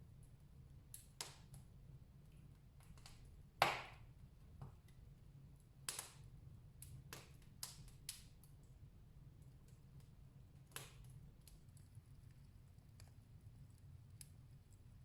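Wood fire crackling in a fireplace: faint, irregular pops and snaps, with one louder pop about three and a half seconds in.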